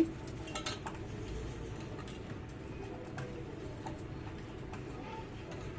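A steel spoon stirring liquid in a stainless steel pot, with a few faint clinks and scrapes of metal on metal over a low steady background.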